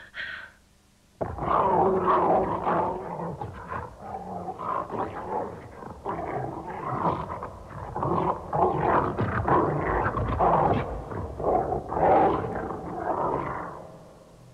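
A creature giving loud, rough animal cries in a long, uneven outburst that starts suddenly about a second in and fades near the end.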